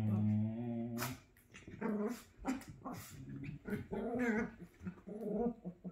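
Small dogs growling as they play-fight: one long low growl for the first second, then a run of shorter growls broken by a few sharp sounds.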